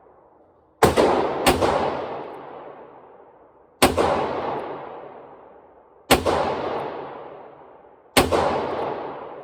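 Five shots from a Heritage Barkeep single-action revolver, each followed by a long echoing tail. The first two come close together, the other three about two seconds apart.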